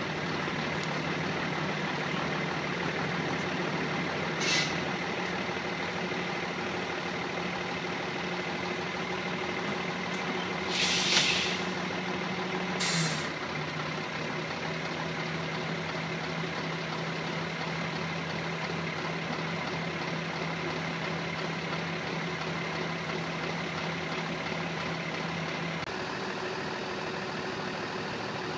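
Heavy army truck diesel engines idling steadily, with three short hisses of air, the loudest about eleven seconds in. The engine note dips briefly just after the last hiss, and its low hum drops out near the end.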